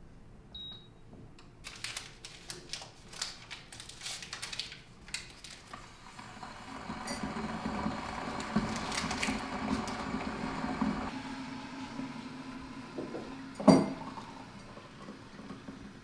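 Taps and clinks of a drinking glass and tea things handled on a wooden counter, then a glass electric kettle heating water with a rising rushing sound that cuts off sharply as it switches off. A single loud knock follows, and hot water starts pouring into the glass near the end.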